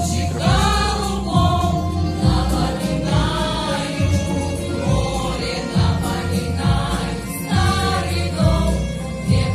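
Vocal ensemble singing a song in chorus over accompaniment with a pulsing bass beat.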